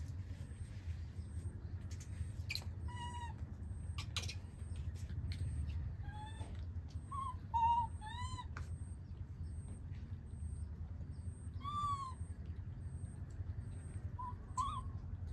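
A baby monkey giving short, high-pitched calls, each rising then falling, about seven in all with a quick run of them midway. Under them is a steady low rumble and a few sharp clicks.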